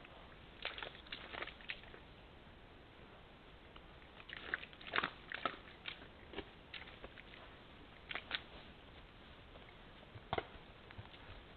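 Red deer calf moving in a muddy wallow: short wet slaps and squelches in a few brief clusters, loudest about five seconds in, as it steps about and then lies down in the mud, over a faint steady hiss.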